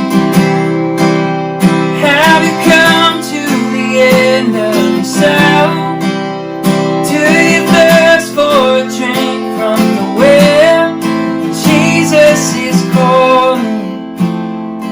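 Worship song played on strummed acoustic guitar, with a wavering melody line over the chords.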